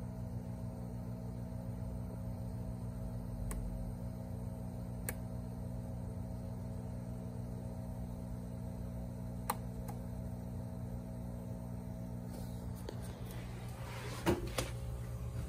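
Steady electrical hum of running aquarium equipment, with three faint sharp clicks spread through it. Near the end comes a short bout of knocks and rustling as the phone is moved.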